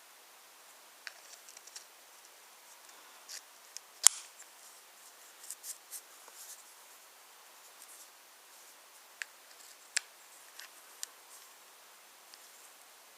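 Scattered light wooden clicks and clacks from a wooden toy train set, about a dozen irregular knocks over a faint hiss, the sharpest about four seconds in.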